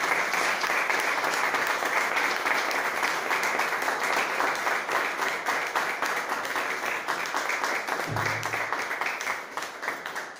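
A room of people applauding, a dense steady clapping that fades away near the end.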